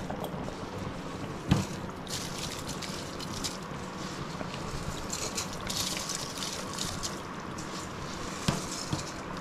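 Chicken biryani masala and water bubbling at a full boil in a large metal pot, with two short knocks.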